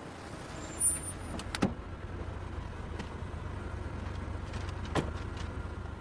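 Steady low rumble with a few sharp clicks and knocks: one about a second in, one at about a second and a half, and one about five seconds in.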